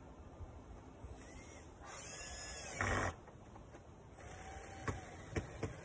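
DeWalt cordless driver running a screw into the siding: a burst of about a second that gets louder just before it stops, then a quieter run about four seconds in with a few clicks near the end.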